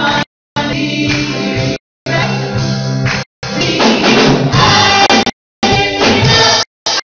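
Live gospel worship music: a woman leads the singing over guitars and other voices. The sound cuts out completely for a moment about five times, in short gaps.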